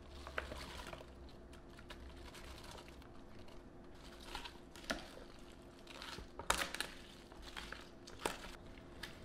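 Chopped cabbage and vegetables tumbling from a bowl into a pot of red-marinated chicken, then being tossed with a ladle and spoon: a leafy rustle and crunch, with scattered sharp clicks of the utensils against the pot. The loudest click comes about six and a half seconds in.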